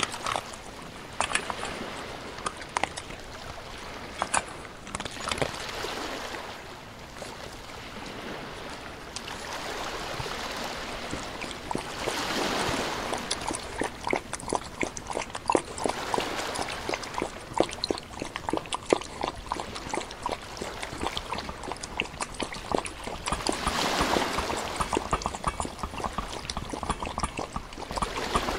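A dog playing in a shallow muddy puddle: water splashing and sloshing with many small sharp splashes, louder around the middle and again near the end.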